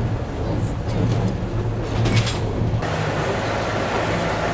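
Diesel engine of a ČSD T458.1 locomotive running steadily with a low hum, with a few clicks about two seconds in. Shortly before three seconds the sound changes abruptly to another vintage diesel railcar's engine running under a broader hiss.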